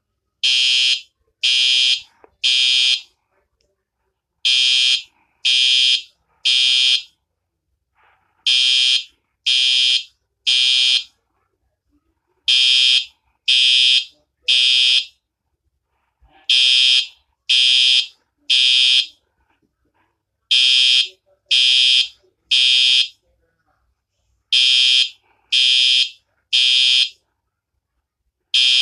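Fire alarm sounding in the three-beep evacuation pattern. Loud, high-pitched electronic beeps come three at a time with a short gap after each group, repeating about every four seconds.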